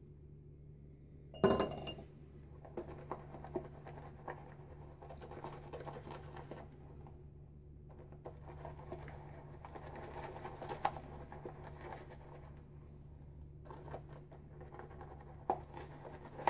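Boar-bristle shaving brush whisking shaving cream in a lather bowl: a faint, wet scratching and crackling in stretches as water is worked into the lather. A single sharp clink about a second and a half in.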